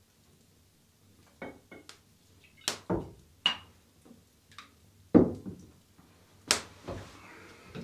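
Knocks and clinks of a glass wine bottle and a metal goblet being handled and set down on a wooden table. Irregular taps, one short ringing clink about three and a half seconds in, and the loudest thump a little after five seconds.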